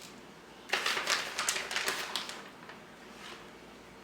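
Plastic packaging of mozzarella cheese crinkling and rustling as it is handled: a quick run of crackly rustles for about a second and a half, starting almost a second in, then a few fainter ones.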